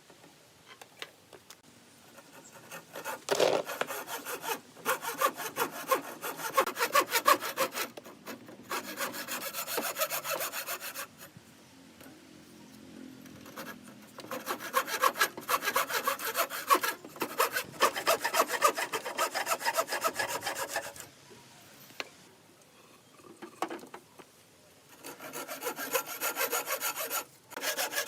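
Hand saw cutting wood in four bouts of quick back-and-forth strokes, separated by short pauses.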